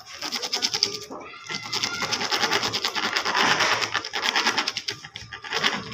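Rapid, even clicking, about ten a second, from a pointed hand tool worked against small stone mosaic tiles.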